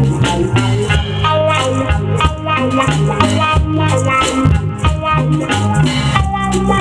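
Live band playing an instrumental Latin-style tune: electric bass guitar, electric guitar through a small Marshall combo amp, congas and a drum kit, with a steady shaken-percussion pulse.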